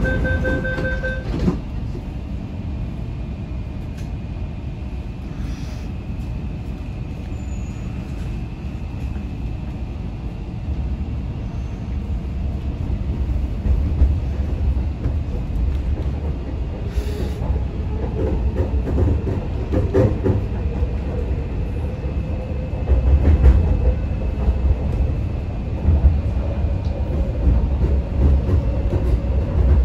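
Door-closing warning beeps aboard an MTR Kwun Tong Line C-train, ending with the doors shutting with a knock about a second in. The train then pulls away and runs through the tunnel, its rumble growing louder from about ten seconds in, over a faint steady whine.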